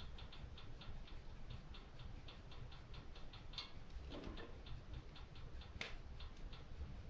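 Wood fire crackling in a stone fireplace: a fast run of small ticks, about four or five a second, over a low rumble, with two sharper pops about halfway through and later on.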